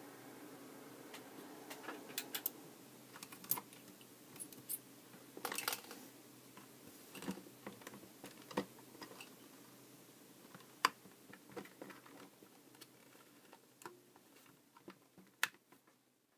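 Irregular small clicks and taps, as of objects being handled, over a faint steady hum; a sharper click near the end.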